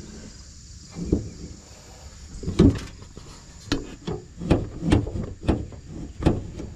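Irregular metallic clunks and knocks of an old car's trunk lid and its prop rod being handled and set, about seven separate knocks, the loudest about two and a half seconds in.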